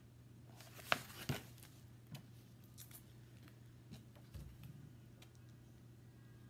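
Paper handling as a cross-stitch magazine is moved and its pages turned: two sharp crisp rustles or taps about a second in, then a few lighter rustles and taps, over a faint steady hum.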